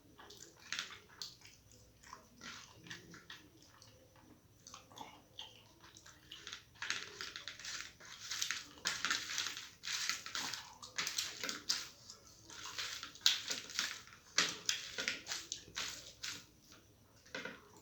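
Close-miked chewing and wet mouth sounds of a person eating rice with dal and mashed potato: a quick, irregular run of small clicks and smacks, sparse at first and busiest in the second half.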